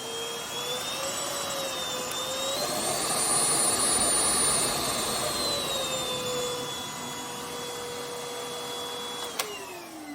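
Moolan V1 Pro cordless stick vacuum's motor running while its power modes are switched: the whine climbs in pitch in steps to the highest suction setting and then drops back to a lower one. Near the end a button click switches it off and the motor winds down with a falling whine.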